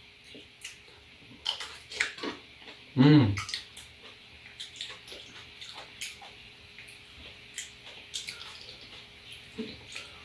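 Soft wet clicks and tearing of ripe apricots being pulled apart by hand and their pits prised out, in small irregular bursts. A short voiced sound, like a brief hum or grunt, cuts in about three seconds in and is the loudest thing.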